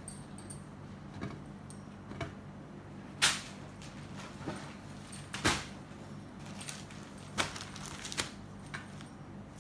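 Cotton saree fabric being handled and laid on a table: rustling with several brief, sharp sounds, the loudest about three and five and a half seconds in, over a steady low hum.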